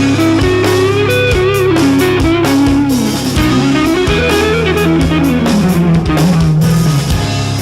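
Rock music with electric guitar, bass and drums.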